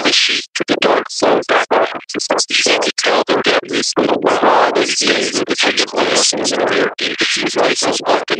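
Cochlear implant simulation of speech in background noise: the speech comes through as hissing, pitchless noise chopped into syllable-sized chunks with short gaps, the words hard to make out.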